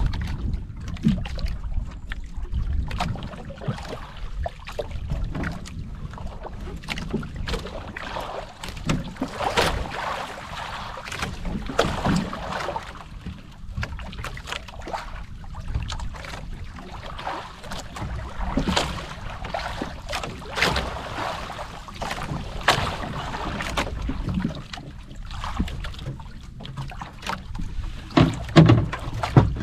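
Water slapping and lapping irregularly against the hull of a small outrigger boat riding at anchor, over a low wind rumble on the microphone.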